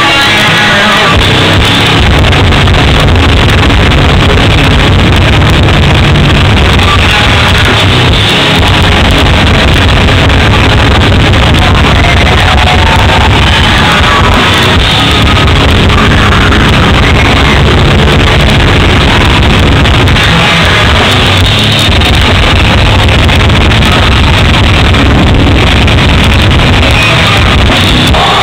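Hardcore band playing live and loud: distorted electric guitars, bass and a drum kit in a dense, unbroken wall of sound.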